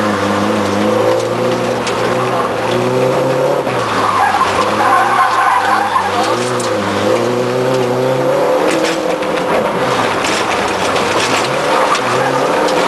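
Rally car engine heard from inside the cabin, revving hard and rising and falling in pitch over and over as the driver shifts and brakes through the stage, with tyres squealing briefly around the middle.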